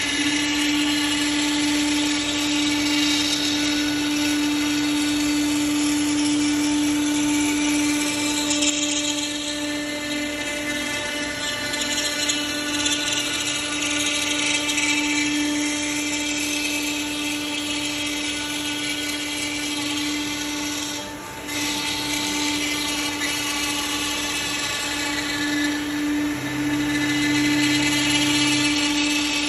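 CNC router spindle running at a steady high-pitched whine while the bit cuts wood, with a brief dip in level about two-thirds of the way through.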